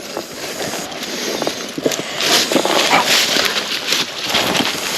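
Footsteps crunching and rustling through dry leaves and brush, in uneven crackly bursts that are loudest about halfway through.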